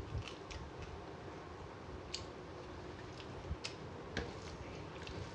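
Close-up eating sounds of rice eaten by hand: wet mouth clicks and smacks of chewing, with fingers working the rice on a bell-metal plate, heard as a scattering of sharp ticks and a few soft thumps.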